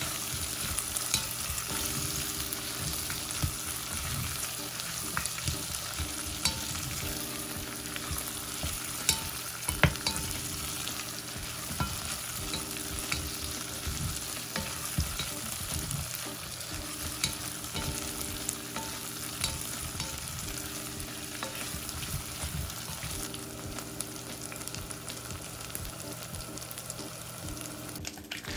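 Food sizzling in a pan, with scattered light clicks of a utensil stirring it.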